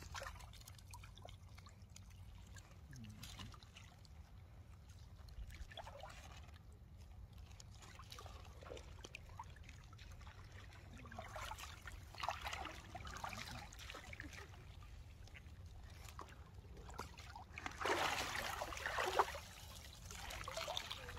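Water splashing and sloshing in irregular small bursts over a low steady rumble, getting louder in the last few seconds.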